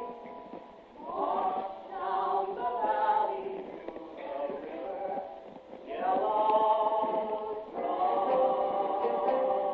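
Musical-theatre cast voices singing a show tune together in phrases. It is a live recording made from the audience, with no high end.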